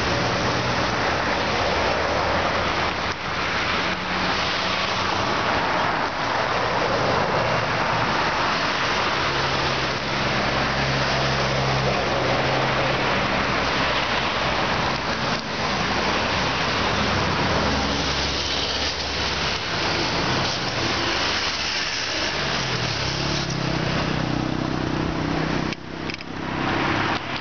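Road traffic passing close by: car engines and tyre noise over a constant rushing hiss, with engine notes rising and falling as vehicles go past.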